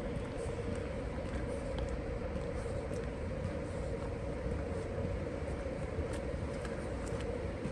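A steady low rumble with a constant hum, unchanging throughout, with a few faint ticks over it.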